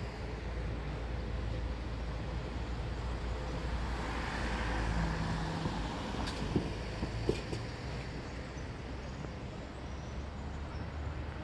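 City street traffic: cars running steadily, with a vehicle passing about four to five seconds in and a few short sharp knocks soon after.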